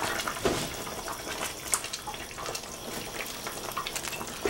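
A wooden spoon stirring a chunky pot roast in an enamel pot of bubbling juices on a high flame, with wet sloshing and scattered light knocks and clicks. The cornstarch slurry is being stirred in to thicken the juice.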